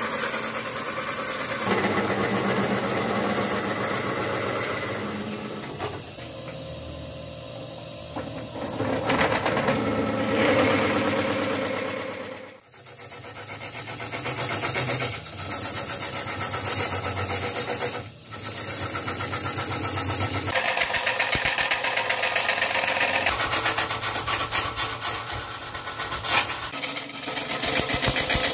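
Wood lathe spinning a hard root-and-resin vase blank while a turning tool cuts into it, a continuous rasping scrape over the lathe's running. The sound drops out briefly and changes character a few times, as the cutting moves from the outside to hollowing the inside of the vase.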